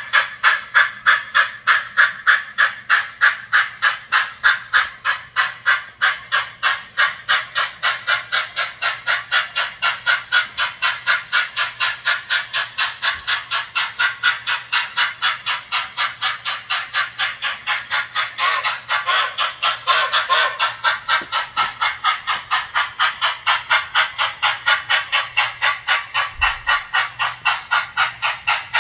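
Soundtraxx TSU-2200 sound decoder in a Bachmann On30 2-4-4-2 articulated model steam locomotive playing steady steam exhaust chuffs through its small speaker, about three to four a second, as the model runs at its slow top speed. About two-thirds of the way through there is a louder stretch of hiss.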